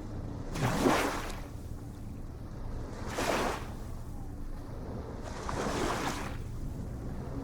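Ocean waves breaking on the shore: three hissing washes of surf about two and a half seconds apart, over a steady low rumble.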